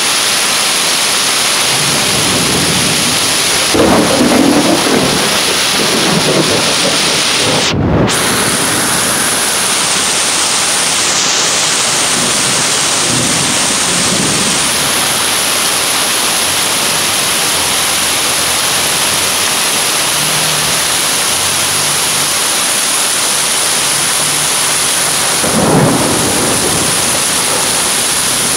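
Heavy rain pouring steadily onto a street and pavement. About four seconds in, and again near the end, there is a short louder low rush. There is a brief dropout in the sound about eight seconds in.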